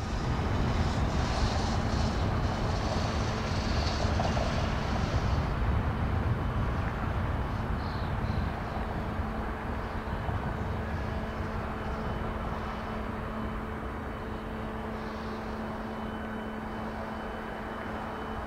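Airbus A321-200 jet airliner arriving to land: steady jet engine noise with a deep rumble and a low hum, loudest over the first few seconds and slowly fading.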